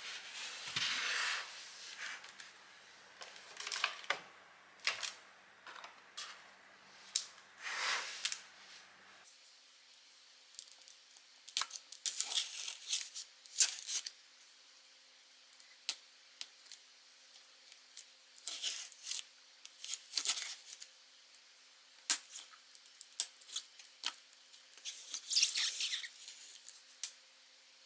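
Cardboard shipping box being handled and shifted on a tabletop, then the packing tape along its seam being slit open: an irregular run of short scrapes, clicks and scratchy rustling.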